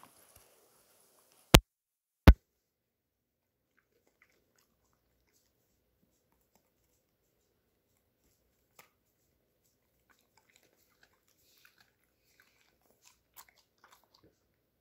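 A dog chewing a raw carrot: two sharp, loud cracks less than a second apart near the start, then faint, scattered crunching.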